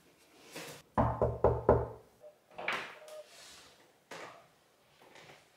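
Four quick knocks on a panelled door about a second in, followed by softer clicks and rustles as the door is opened.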